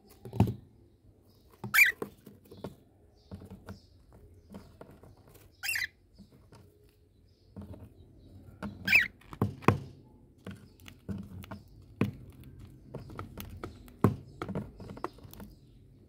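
A cockatiel scratching and shuffling about in shredded bedding inside a cardboard nest box, digging out a nest: irregular knocks, scrapes and rustles against the cardboard, with a few sharper scratches.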